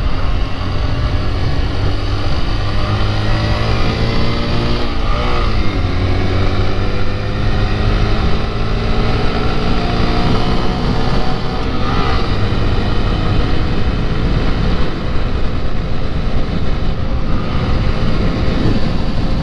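Honda Grom's 125 cc single-cylinder four-stroke engine held at full throttle on a top-speed run. Its note climbs slowly in pitch, dipping briefly about five seconds in, under heavy wind rumble on the helmet-mounted microphone.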